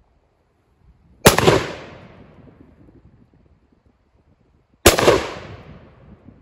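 AR-15 rifle firing two single shots about three and a half seconds apart, each followed by a long echo that dies away over a second and a half.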